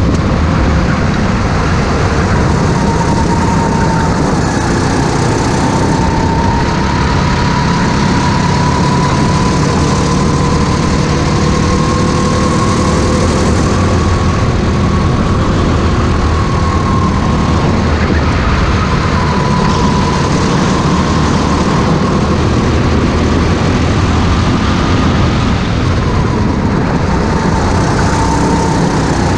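Go-kart engine running hard under racing load, its note rising and falling gently as the kart goes through corners, over a heavy low rumble on the onboard microphone.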